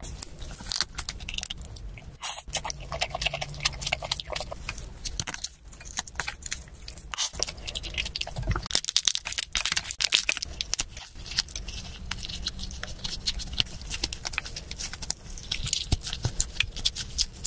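Chewing a mouthful of spicy red noodles: quick wet smacking and crunching clicks throughout.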